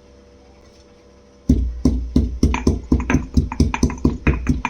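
Pestle pounding cumin and fennel seeds in a mortar: quick, even thuds, about four a second. They start about a second and a half in, after a faint steady hum.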